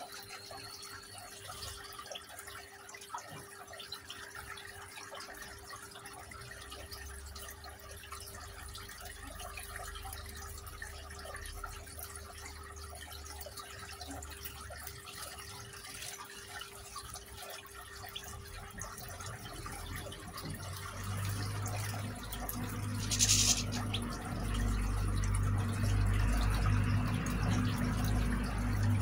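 Water trickling and dripping in a small decorative rock fountain. In the last third a low hum comes in and grows louder, and a brief sharp high sound cuts through about two-thirds of the way in.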